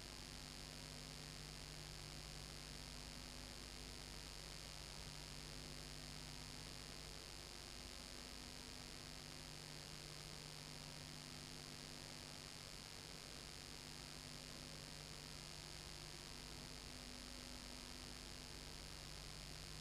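Steady low electrical mains hum with faint hiss and nothing else.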